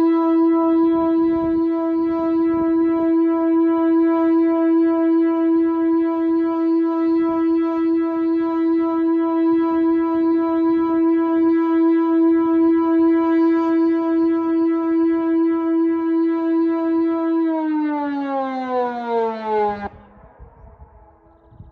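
Whelen WPS-2807 electronic siren sounding the steady all-clear tone, the 'danger over' signal, then gliding down in pitch about three seconds before the end and cutting off suddenly.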